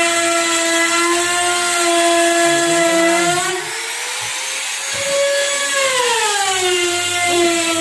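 Electric power tool motor running with a steady whine. About three and a half seconds in, the whine rises in pitch and the sound drops a little, then it falls back to its earlier pitch and level between six and seven seconds.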